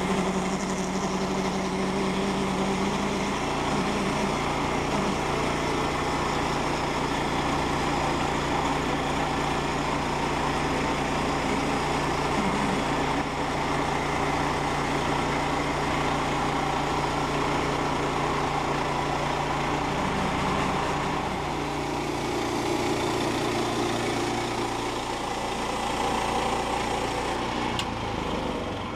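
Small gasoline engine of a Woodland Mills portable bandsaw sawmill running steadily under load while the band blade skims a thin top slab off a log.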